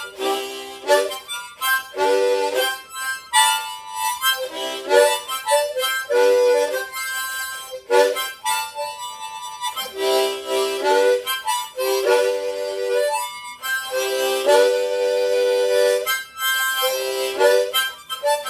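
Solo harmonica playing the introduction to a song: short breathy chords in quick phrases with brief gaps, some chords held for a second or two.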